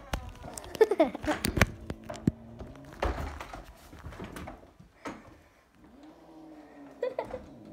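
Angry cat yowling and growling in drawn-out, wavering calls, with a long rise-and-fall yowl near the end. Knocks and rubbing from the phone being handled are mixed in.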